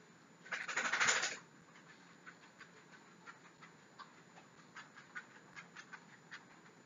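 A sudden rattling burst lasting about a second, then a run of light irregular clicks: a dog's claws ticking on the kitchen floor as it walks toward the table.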